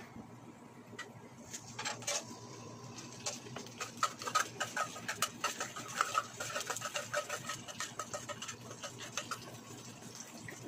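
Rapid metallic clicking and scraping of a hand-held can opener working around the lid of a tin can of tuna, heaviest in the middle.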